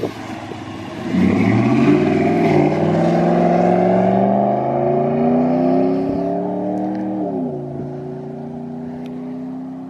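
Ram 1500's 5.7 L Hemi V8 pulling hard through a dual Flowmaster American Thunder cat-back exhaust, its note climbing steadily for several seconds. About seven seconds in, the pitch drops as the automatic shifts up, and the engine settles into a lower, steadier drone.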